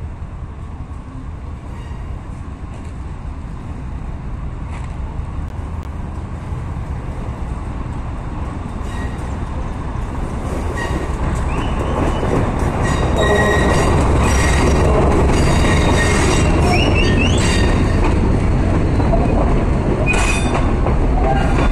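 Diesel-hauled passenger train led by locomotive 2351 approaching and passing close by. A low rumble grows steadily louder, and from about halfway the passing carriages' wheels squeal and clatter on the rails.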